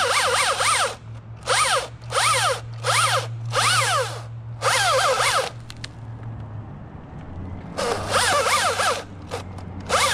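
Husqvarna T540i XP battery-powered top-handle chainsaw cutting in short bursts. The electric motor's whine dips and rises again with each bite of the chain into the wood. About six bursts come in quick succession, then a pause of about two seconds, then more bursts near the end.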